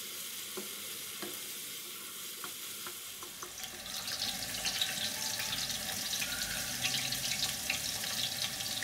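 Chicken sizzling softly in ghee in a frying pan, with a few light taps of a wooden spoon stirring it. About three seconds in, this gives way to a louder, crackling sizzle of sliced onions frying in oil in an aluminium pot.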